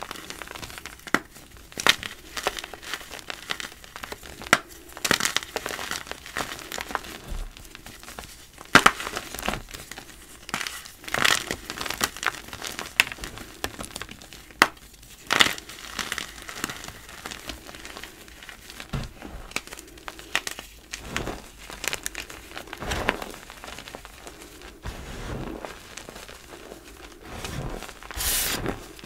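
Gym chalk crumbled by hand: irregular crunches and crackles as re-formed chalk blocks break into pieces in loose powder. Near the end the sound turns to softer powdery rustling as the hands press into the loose chalk.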